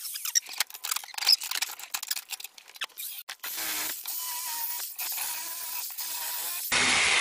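Light clicking and rattling of cut steel exhaust pipe pieces being handled at a bench vise, then a softer steady noise. Near the end, a sudden louder angle-grinder whir comes in, its whine falling in pitch.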